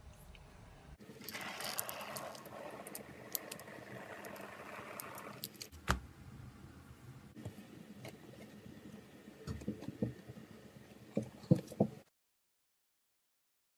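Slime-making materials being handled: scraping and squishing with scattered taps, a louder knock about six seconds in and a run of sharp taps near the end, then the sound cuts off suddenly.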